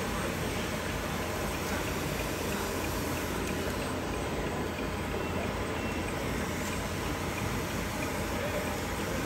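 Steady background din in a large hall with RC model trucks and loaders working; no single sound stands out.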